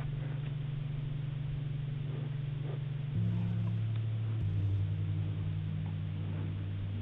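A low, steady drone that shifts to new pitches twice, about three and four and a half seconds in, over a faint hiss: a droning ambient music bed.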